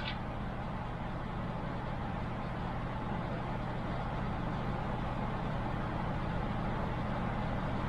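Steady low mechanical hum with a faint steady whine above it, unchanging throughout.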